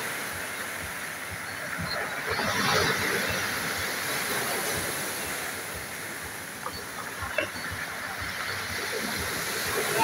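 Small sea waves washing onto a pebble beach, a steady surf wash that swells about two to three seconds in and again at the end, with a couple of light clicks partway through.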